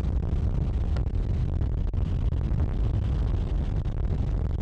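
Steady low rumble of a Jeep Wrangler TJ driving fast on a dirt trail, picked up by a camera mounted outside on its fender, with wind buffeting the microphone.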